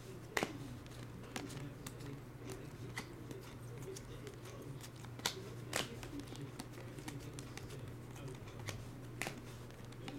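Topps Chrome baseball cards being flipped through by hand, each card slid off the stack: soft clicks and snaps of card against card, with a couple of louder snaps, over a steady low hum.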